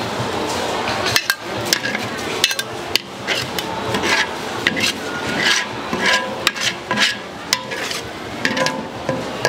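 Metal spatula scraping and clinking against a pan in irregular strokes as pad thai noodles are stir-fried.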